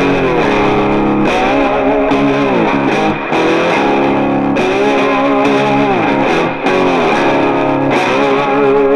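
Background music led by guitar: held notes and chords that slide down in pitch every second or two.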